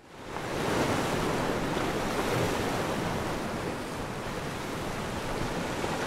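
Ocean surf washing steadily onto a rocky shore, fading in at the start.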